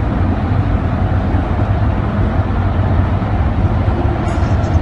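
A steady low rumbling noise, with a few faint high clicks near the end.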